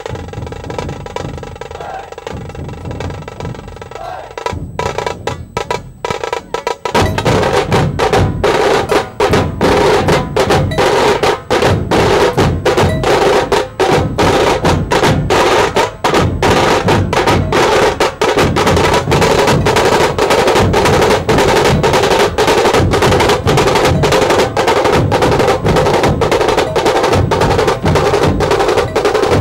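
Maharashtrian dhol-tasha drumming: big barrel dhols beaten together with small tasha drums rolling under sticks. It is quieter for the first few seconds, then about seven seconds in the full troupe comes in with loud, fast, dense beating.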